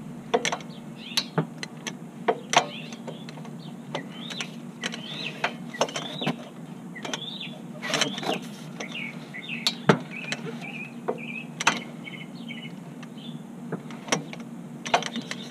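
Ratcheting torque wrench clicking in short, irregular strokes as the big coilover-to-knuckle bolts are tightened down. Birds chirp in the background.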